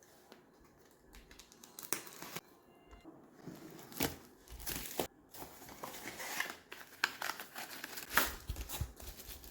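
Product packaging being opened by hand: rustling, crinkling and tearing of wrapping with scattered sharp clicks of box handling. It starts quietly and grows busier about halfway in.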